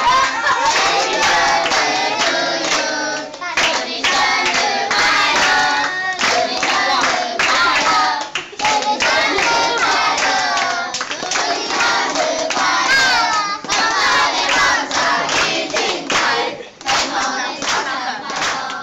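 A group of children singing a birthday song together, with hand clapping along.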